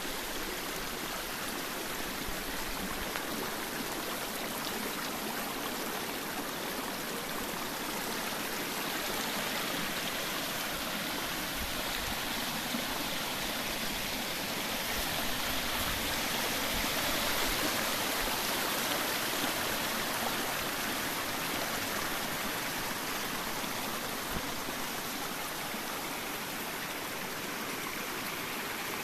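Shallow stream running over a bed of stones and pebbles: a steady rush of water, a little louder around the middle.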